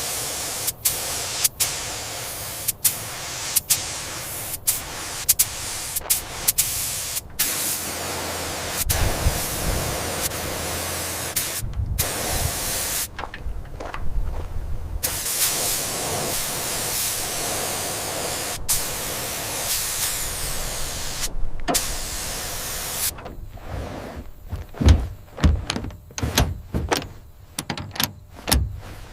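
Workshop tool sounds cut together: a steady hiss like spraying or blasting, broken by sharp clicks and several abrupt cuts, then a quick run of mechanical clicks and knocks in the last few seconds.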